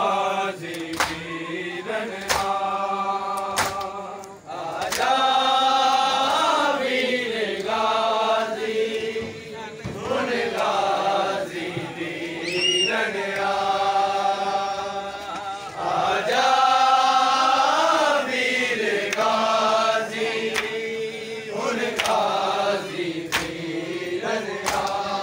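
Men's voices chanting a noha lament in long, wavering held lines, with sharp hand-on-chest slaps of matam (ritual chest-beating) about once a second.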